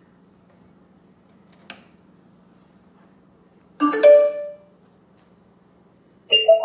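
A click as the knob switch of a Bluetooth speaker in a vintage Philco radio cabinet is turned, then two short electronic chimes from the speaker about two and a half seconds apart: the speaker's notification tones as it switches on.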